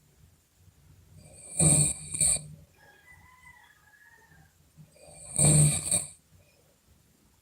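A person snoring loudly: two long snores about four seconds apart, the first about a second and a half in, the second about five and a half seconds in, with quiet breathing between.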